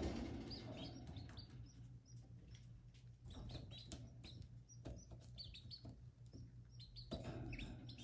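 Canary nestlings cheeping: many short, high begging calls in quick succession, with rustling in the nest that grows louder about seven seconds in.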